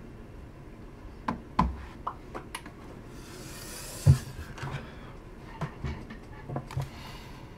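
Handling noise from someone setting up a camera and sitting down in front of it: scattered clicks and knocks and a spell of rustling, with one sharp thump about four seconds in.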